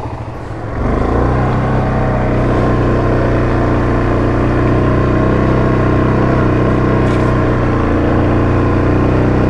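Yamaha Grizzly 700 ATV's single-cylinder engine opening up about a second in, then pulling steadily under load on a hill climb.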